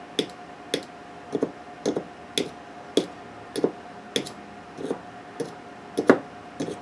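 Sharp snapping clicks, about two a second, as a nail wired to a 12-volt, 35-amp battery charger is tapped repeatedly on the terminal of a 9.6-volt DeWalt NiCd drill battery and sparks at each touch. This is the 'zap' method, shocking the cells to break up dendrite crystals.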